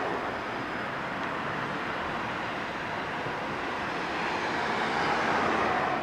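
Road traffic noise: a steady hiss of passing vehicles, swelling louder near the end as one passes close.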